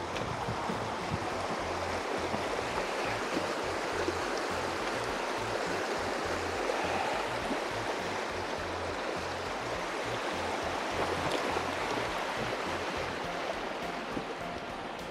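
Shallow, fast mountain creek rushing steadily over a rocky bed.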